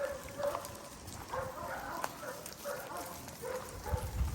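A string of short animal calls, about two a second, each a brief pitched cry, with a few dull low thuds near the end.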